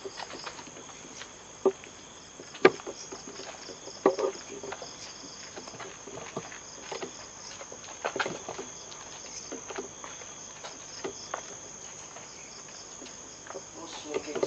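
Insects, likely crickets, chirping steadily in a high, even trill, with scattered footsteps and sharp knocks of people moving through a derelict building. The loudest knocks come a little under three seconds in and again around four and eight seconds.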